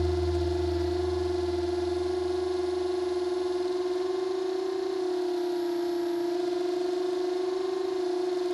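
Background music in a quiet passage: one steady held note, with a low bass note fading away over the first three seconds.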